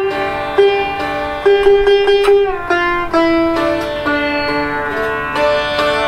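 Sitar played solo: a slow run of single plucked notes that ring on, a few of them slid in pitch.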